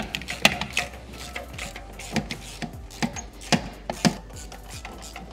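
Irregular clicks and knocks of hand tools and parts as the ignition coils and spark plugs are worked loose on one bank of a BMW S63 twin-turbo V8, with a few sharper clicks standing out.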